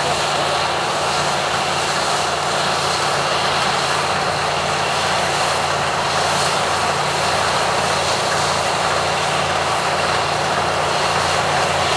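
Massey Ferguson 40 combine harvester running steadily while cutting wheat: a constant engine drone with an even rushing noise over it, with no change in speed or load.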